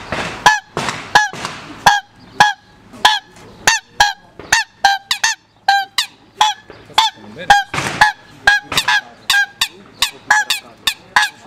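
A hand-blown wooden waterfowl call sounded in a long run of short honking notes, about two a second, with a few breathy rushes of air between them.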